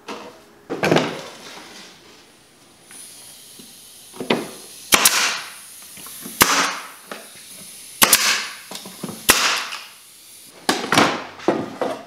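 Pneumatic stapler firing staples into plywood: a string of about five sharp shots spaced a second or so apart, two of them in quick succession, each followed by a short hiss of air.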